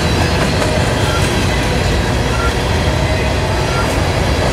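Covered hopper cars of a grain train rolling past on the rails: a steady, loud rumble of steel wheels on track with light clatter.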